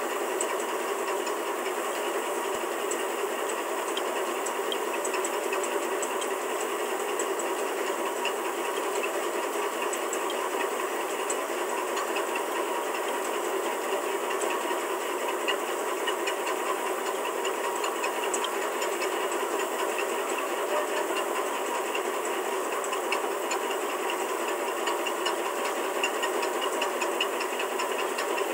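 Steady machine noise with a faint, fast rattle in it, even in level.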